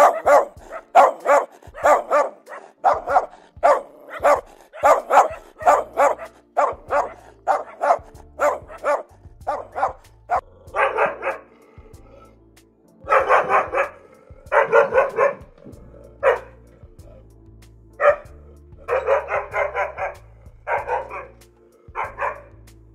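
Dog barking over and over, short barks about two to three a second at first, then in quick clusters with short gaps. From about six seconds in, a low bass line of music plays underneath.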